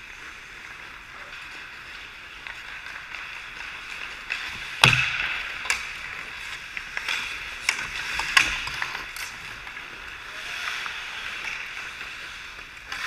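Ice hockey skates scraping and carving on the ice, with several sharp clacks of sticks and puck; the loudest crack comes about five seconds in.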